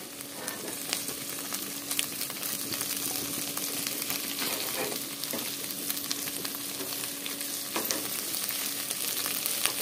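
Small mourala fish frying in hot oil in a kadai, sizzling steadily, with a few scrapes and taps of a wooden spatula as the fish are stirred and turned over to fry the other side.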